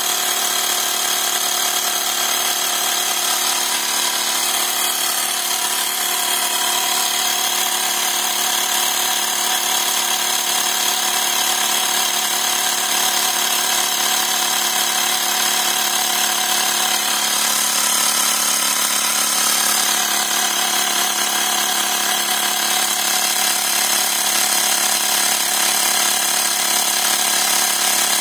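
Xiaomi portable electric air compressor running steadily as it pumps up a bicycle tyre, a continuous motor-and-pump hum with the pressure rising toward its preset cut-off.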